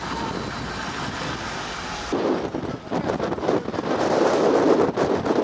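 An open-top jeep's engine runs steadily for about two seconds. Then it cuts off abruptly to louder, uneven gusts of wind buffeting the microphone.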